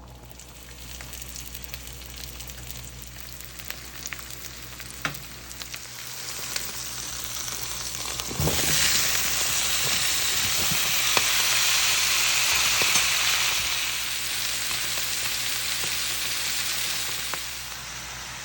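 Food frying in a hot pan, a crackling sizzle. It grows much louder about eight and a half seconds in and drops back shortly before the end, with a few sharp clicks before the jump.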